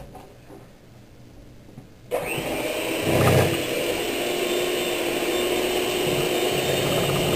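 Black & Decker electric hand mixer switched on about two seconds in and running steadily, its beaters churning peanut butter into pudding in a steel bowl. The motor is loudest briefly about a second after it starts.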